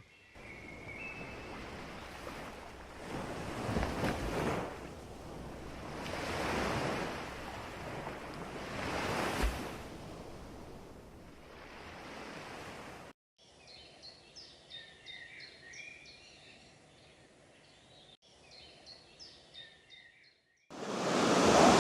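Ocean waves washing in, swelling and falling back about three times. After a sudden cut, birds chirp over a faint hiss. Near the end a loud rushing sound cuts in abruptly.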